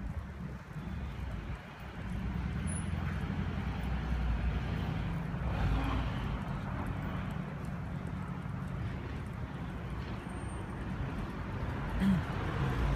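Steady low rumble of city road traffic, with a brief louder sound near the end.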